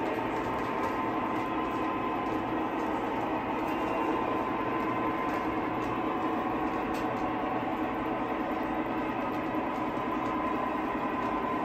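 O scale model freight trains rolling over three-rail track: a steady rumble and whir of wheels and motors, with a few faint clicks.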